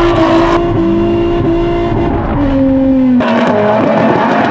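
Drift car engine held at high revs through a smoky slide, a steady high note over tyre noise that dips a little about two and a half seconds in. About three seconds in the sound changes abruptly to a second engine note as two drift cars run in tandem.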